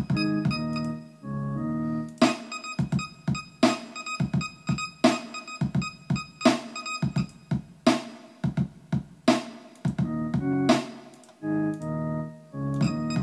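Electronic music played on rack-mounted hardware samplers: short keyboard-like chord stabs with sharp percussive hits between them. The chords drop out for several seconds in the middle, leaving mostly the hits.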